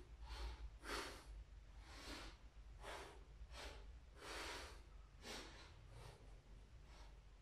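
A man breathing hard through the effort of sit-ups, in short, sharp breaths repeating about once or twice a second. The breaths are faint.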